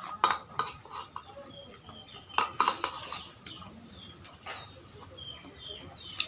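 Eating noodle soup: spoon and chopsticks clicking against a bowl, with a few sharp clicks early and a cluster about two and a half seconds in. Short high chirps sound in the second half.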